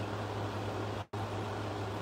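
Steady low hum with a hiss behind it, like a fan or air conditioner running, cut off completely for a split second about a second in.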